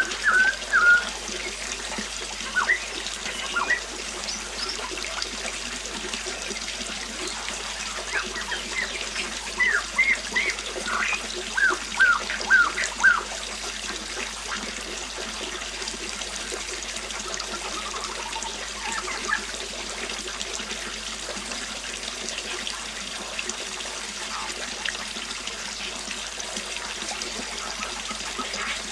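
Steady rush of a flowing river, with birds chirping over it in short bursts, most of them in the first half and thinning out later.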